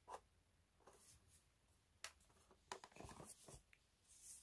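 Faint handling noise: a few light clicks and a short stretch of rustling and knocking as plastic styler attachments are lifted from their storage case.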